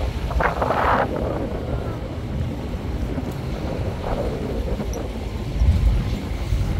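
Vehicle driving over a rough dirt road: steady low engine and road rumble, with wind buffeting the microphone.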